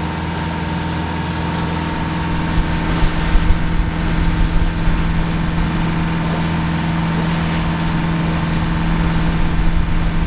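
A sailboat's inboard engine running steadily under way, a constant low drone with no change in speed.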